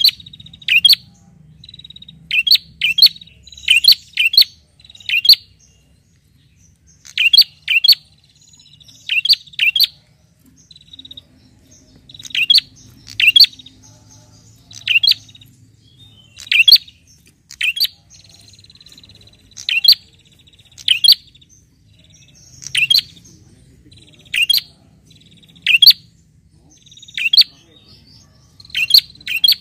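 Caged red-headed prenjak calling loudly and persistently: sharp chirps in quick pairs and triplets, about one burst every second or so, with a thin buzzing trill between some of them. This is the bird's insistent call to a rival.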